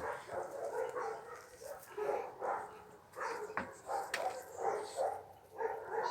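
Dogs barking and yipping in short, repeated calls, with a few sharp knocks among them.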